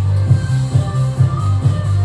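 Electronic dance music with a heavy, pulsing bass line.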